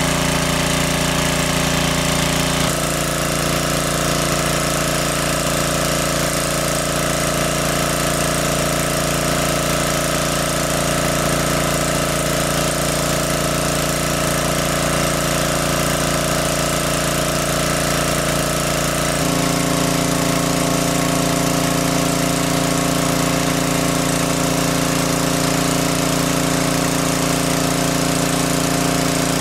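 Small engine driving a water pump, running steadily. Its tone changes abruptly twice, about three seconds in and again about two-thirds of the way through.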